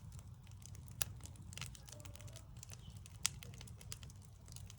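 Backyard wood fire crackling: scattered small snaps with two sharper pops, about a second in and just past three seconds, over a low steady background rumble.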